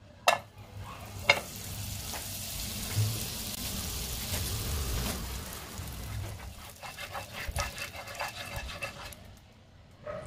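Butter melting and sizzling in a hot nonstick frying pan, a steady high hiss, after two sharp knocks in the first second and a half. From about seven seconds in, a spatula scrapes and clicks across the pan as it spreads the foaming butter, and the sizzle dies down near the end.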